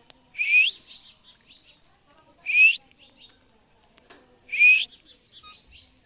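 Caged green parrot giving three loud, short screeches that rise in pitch, about two seconds apart, with faint chirping between them.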